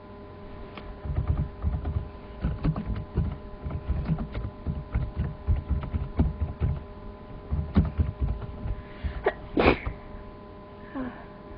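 A person sneezes once, loudly, about ten seconds in, with a short intake just before it. Before that come several seconds of irregular low bumps and rustling, and a steady electrical hum runs underneath.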